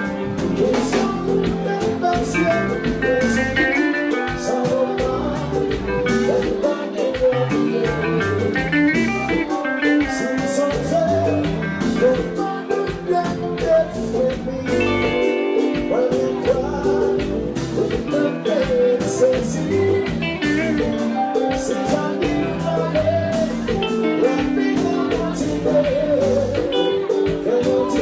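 Kompa band playing live: a male lead voice singing over electric guitars, bass guitar and drum kit.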